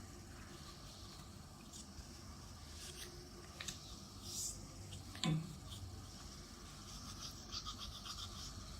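Faint rubbing and scratching with scattered light clicks from handling and wiping plastic table-fan parts, and one louder knock about five seconds in.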